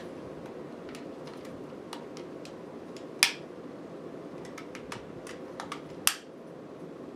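Plastic Progrise key toys being handled: scattered light clicks and taps, with two sharper snaps about three seconds and six seconds in.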